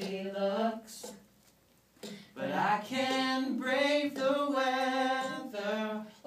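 A woman singing a slow song into a handheld microphone. She pauses briefly about a second in, then holds one long note through the middle.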